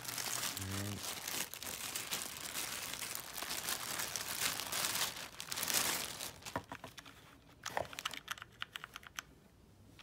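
Clear plastic bag crinkling and rustling as a small mechanical keyboard is pulled out of it. The crinkling dies away after about six seconds into a few scattered sharp clicks and taps.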